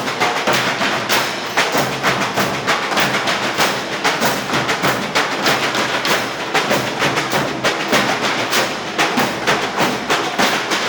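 Percussion ensemble of drums and percussion made from recycled cans and scrap, beating a fast, steady rhythm.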